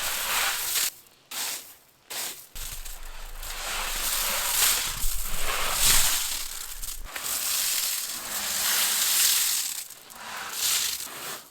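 Loose gravel crunching and scraping in long continuous stretches, with two short breaks about a second and two seconds in.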